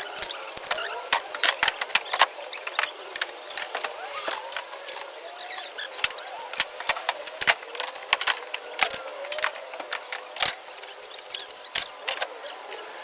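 Fast, irregular clatter of knocks and bangs from goods being loaded and stacked in a removal truck, with faint high squeaky sounds between them.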